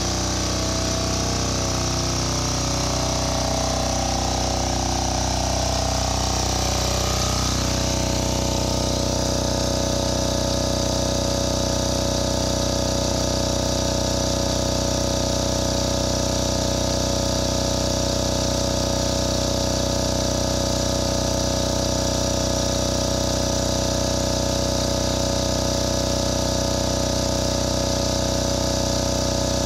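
Yanmar L48AE single-cylinder air-cooled diesel engine running a generator at a steady speed.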